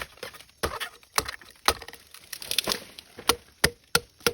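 Repeated sharp knocks of a tool striking bamboo, roughly two a second and unevenly spaced, some with a short hollow ring.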